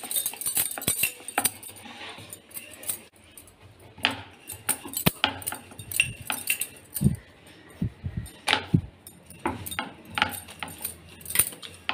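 Rolling pin working dough on a rolling board, with irregular clicks, clinks and knocks as it is pushed back and forth.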